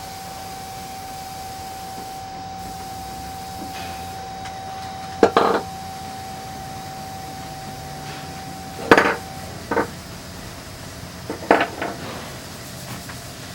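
Handling noise from fitting a hose band and drain-hose fittings: a few separate clacks and knocks of hard parts. There is a pair of clacks a third of the way in, a sharp knock past the middle followed by a smaller one, and a quick cluster of clicks near the end.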